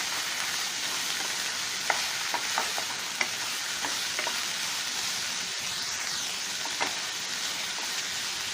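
Capsicum pieces frying in masala and oil in a nonstick kadai, sizzling steadily while being stirred. Several light clicks of the spatula against the pan come between about two and three and a half seconds in, and one more near the end.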